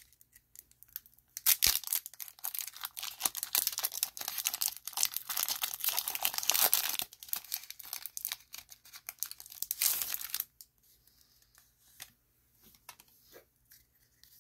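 Foil Pokémon booster pack wrapper being torn open and crinkled by hand. The crackling runs from about a second and a half in to about ten seconds in, then gives way to faint rustles and clicks as the cards are handled.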